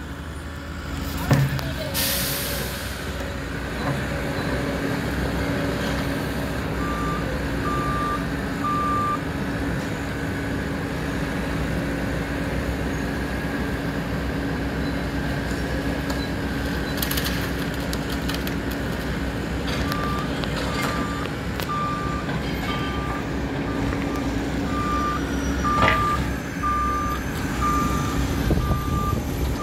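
A compact wheel loader's diesel engine runs steadily as it works, with a backup alarm beeping about once a second: three beeps about seven seconds in, then a longer run from about twenty seconds on. There is a short air hiss about two seconds in.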